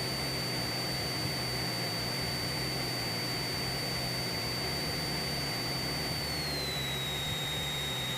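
Cessna 172 cabin noise in cruise, recorded through the headset intercom: a steady engine and propeller drone under a hiss, with a high thin whine that glides down in pitch about six and a half seconds in, as engine power is eased back for the descent.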